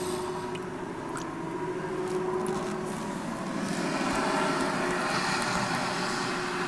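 Steady mechanical hum over a rushing noise, like a motor running nearby, growing a little louder and hissier about four seconds in.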